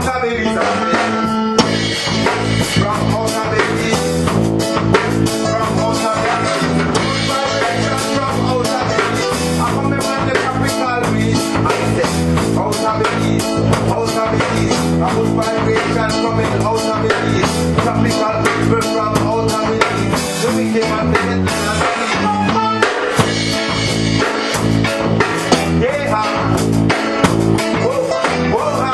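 Reggae band playing live, with drum kit, electric guitar and bass guitar.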